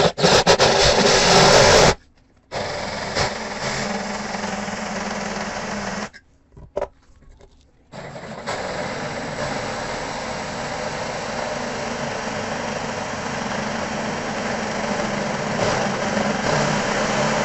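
Cordless drill driving a wood hole saw into a hard Granitek composite sink, in three runs: a very loud burst of about two seconds, a second run of about three and a half seconds, and a long steady run of about ten seconds. The material is very hard, and it is dulling the teeth of the wood hole saw.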